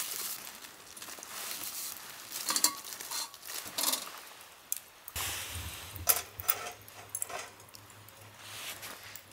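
Handling of a hinged wire grilling basket as whole yellow croakers are laid in it with a plastic-gloved hand and it is set over a charcoal grill: scattered light metal clinks and rattles with crinkling rustles.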